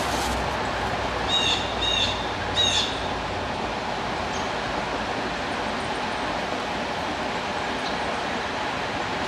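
Steady rush of creek water flowing through a tailwater below a dam, with a bird calling three times in quick succession between about one and three seconds in.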